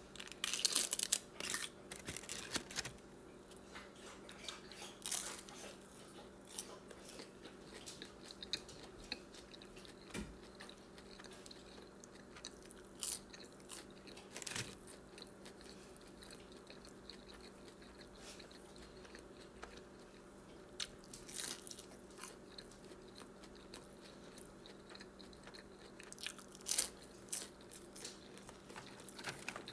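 Close-miked chewing and biting of fast food, with sharp crunches and clicks scattered throughout. The crunches are densest in the first few seconds, as the foil lid of a dipping-sauce cup is peeled off. A faint steady hum runs underneath.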